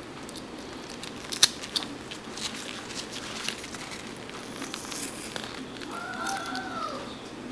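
Whittling knife point digging small chips out of a wooden carving: scattered small clicks and crackles of the blade cutting wood, the sharpest about one and a half seconds in.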